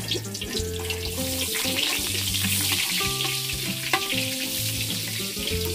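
Margarine sizzling as it melts in hot cooking oil in a large metal wok, the sizzle growing after about a second. A metal spatula stirs and scrapes the pan, with one sharp tap on the wok about four seconds in. Soft background music with held notes plays underneath.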